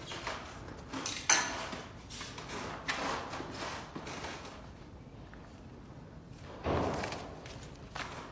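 Handling sounds at a letterpress bed: a sharp knock about a second in, a few lighter knocks, and a longer rustle near the end as sheets of paper are handled over the inked type.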